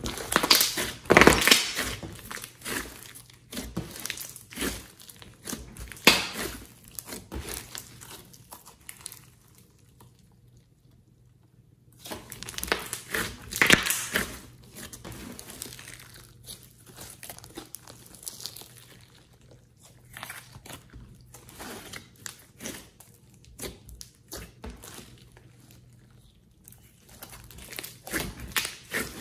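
Hands squeezing, pressing and stretching a thick glossy slime, giving irregular sticky crackles and squelches. There are loud clusters about a second in and again around the middle, a short lull just before that, and softer crackling after it.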